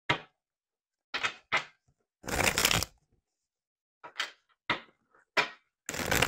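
A deck of tarot cards being shuffled and handled in a run of short bursts, about eight in all, with longer shuffles about two seconds in and near the end.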